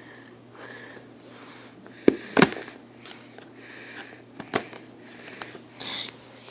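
Mouse retail packaging being cut open at its tape seals and handled: scattered sharp clicks and crackles, the two loudest close together about two seconds in, a few lighter ones later.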